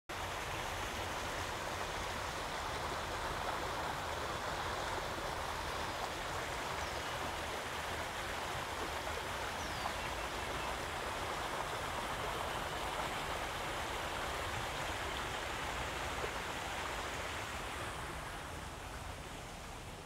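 Steady rush of a small creek's water running over stones, getting a little quieter near the end.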